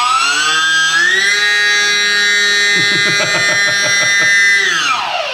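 E-Flite UMX Timber's small brushless electric motor and propeller running up in a thrust check: a loud whine that climbs in pitch through the first second or so, holds steady at full throttle, then drops away near the end as the throttle is pulled back.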